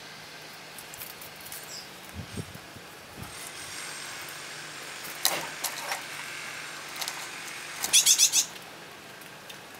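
Small birds chirping under house eaves: scattered short high calls and clicks, with the loudest part a quick run of about half a dozen high chirps about eight seconds in.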